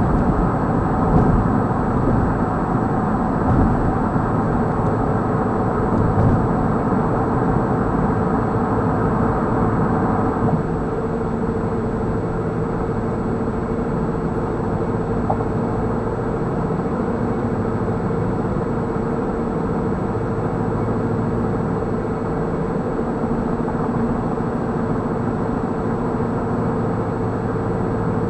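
Steady tyre and road noise from a car at highway speed, heard inside the cabin. About ten seconds in, the sound changes to a duller, steadier hum, around where the road turns from asphalt to concrete.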